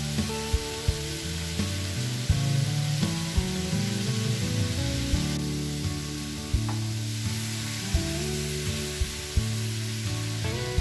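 Sliced batata baroa (arracacha) sizzling as it fries in a pan, with sharp knocks of a wooden spoon against the pan as it is stirred. Near the end, water is poured into the hot pan. Soft background music plays underneath.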